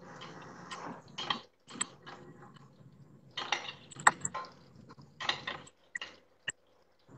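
Kitchen utensils clinking and scraping in irregular short knocks: a spoon against a steel frying pan and bowls as they are handled, heard thinly over a video call.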